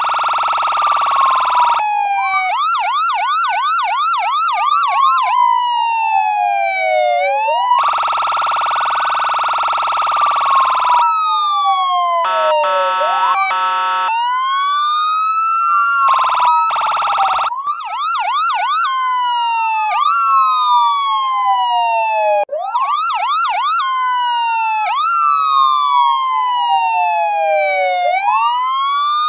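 American police car electronic siren through an amplifier, cycling through its tones: a steady buzzing horn blast, a fast yelp, and a slow rising-and-falling wail. It switches between them several times, with more horn blasts and a short stepped warble near the middle.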